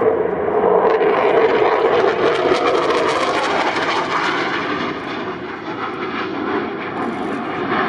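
Eurofighter Typhoon's twin EJ200 turbofans, loud jet noise as the fighter flies its display. A hissing, crackling edge builds about a second in, is strongest around three seconds, then eases off.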